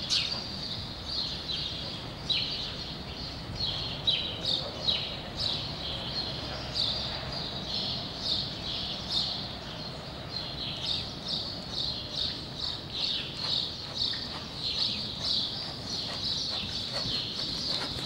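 Small birds chirping and twittering over and over, with the soft, rhythmic footfalls of a horse trotting on sand footing.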